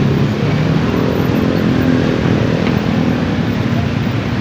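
KRL Commuterline electric train running toward the listener, its traction motors humming steadily under the rumble of wheels on the rails.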